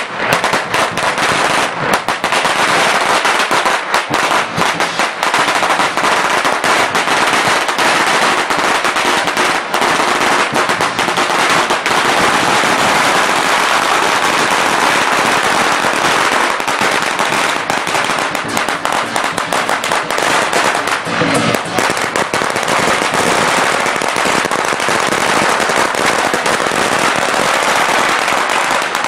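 Strings of firecrackers going off in a continuous, loud, rapid crackle of pops.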